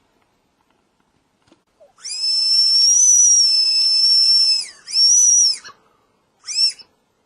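Whistle candy blown three times: a long high whistle of about two and a half seconds, a shorter one, then a brief toot near the end, each dropping in pitch as it stops.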